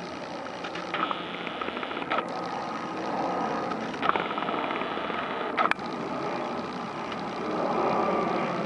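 Steady distant engine noise, a rumbling hiss with a faint high tone running through it. A few short sharp clicks cut in along the way.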